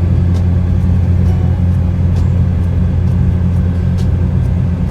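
Steady low drone of a car's engine and road noise heard from inside the cabin.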